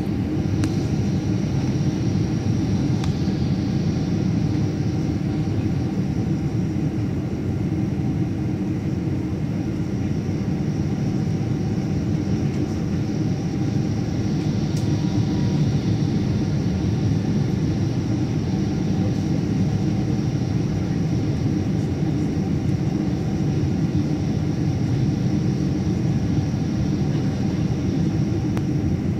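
Steady rumble of a Boeing 777-200's engines and rushing air heard from inside the cabin as the airliner comes in low on final approach and then rolls along the runway.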